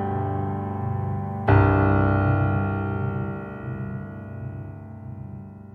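Background keyboard music: a held chord, then a new chord struck about a second and a half in that slowly dies away.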